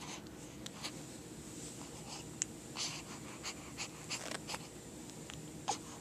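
A run of short, soft sneezes and snorts, several small ones scattered through, with a sharper sneeze near the end.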